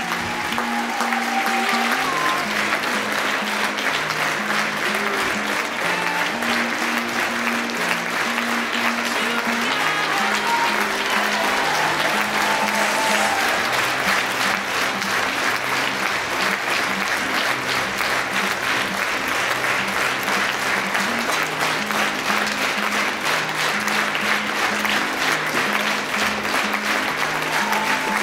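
Theatre audience applauding steadily through a curtain call, over music with a slow line of low held notes.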